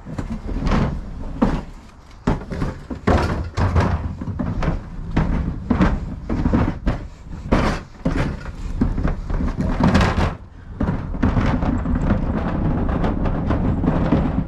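Plastic wheelie bin being wheeled over paving: a low rumble from its wheels, broken by repeated knocks and thuds, then a steadier rumble in the last few seconds.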